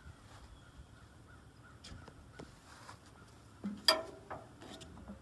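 A bird's harsh call, loudest about three-quarters of the way in, with a shorter one soon after, over a low, steady background.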